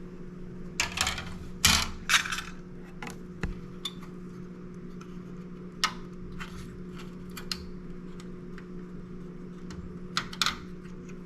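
Scattered light clicks and short rattles of small hard parts being handled and set down: the old battery holder and its pieces coming free of a pinball machine's circuit board. A steady low hum runs underneath.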